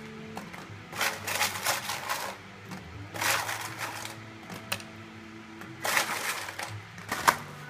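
Granulated sugar poured from a cardboard box into a stainless steel jug, in three separate pours about a second, three seconds and six seconds in, with a sharp tap near the end.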